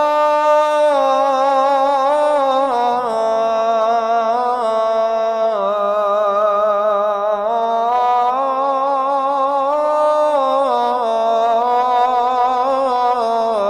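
A muezzin chanting the adhan, the Islamic call to prayer, holding one long melismatic note within "hayya 'ala as-salah". The voice runs unbroken, stepping down and back up in pitch with wavering ornamental turns.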